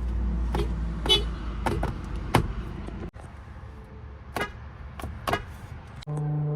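A Nissan-built car's horn: several short beeps, then a steady honk starts near the end. A low steady rumble runs under the first half and cuts off about three seconds in.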